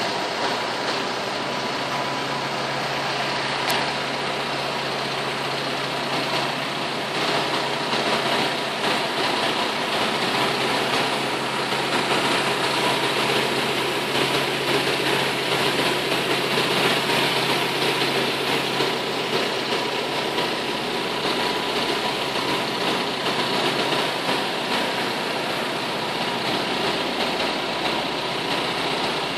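A machine's engine running with a rotary sweeper (broom) attachment at work, giving a constant mechanical hum and hiss. It grows a little louder after about seven seconds.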